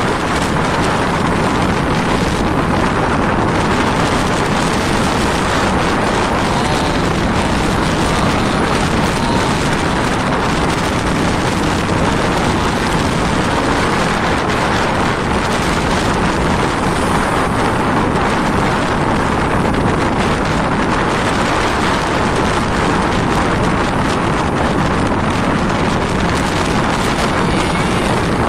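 Strong wind buffeting the microphone over rough open sea: a loud, steady rushing noise with no distinct events.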